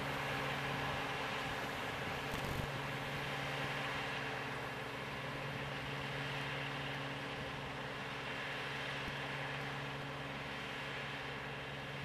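Claas Mega Dominator 202 combine harvester running steadily under load while cutting and threshing wheat: a constant drone of engine and threshing machinery with a low, even hum.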